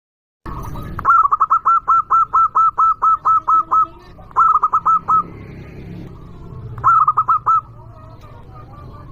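Zebra dove (local Indonesian perkutut) calling loudly: a fast run of about a dozen short, clipped cooing notes, then two shorter bursts of about five notes each.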